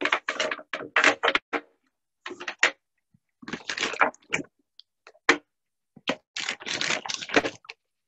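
Smooth river stones being picked up and set down on a glass tabletop, clacking against the glass and against each other in quick irregular clusters with short pauses between.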